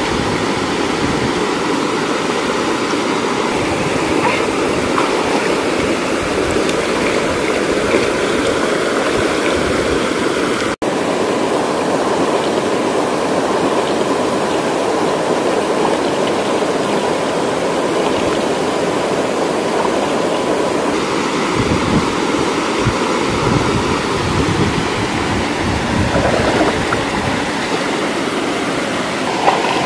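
Steady rush of a stream and a small waterfall, mixed with water being splashed by hand. The sound cuts out for an instant about a third of the way through.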